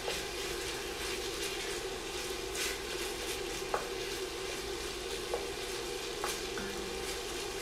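Ground beef sizzling as it browns over medium-high heat in bacon fat in an enamelled cast-iron Dutch oven, stirred with a spoon that gives a few short clicks against the pot.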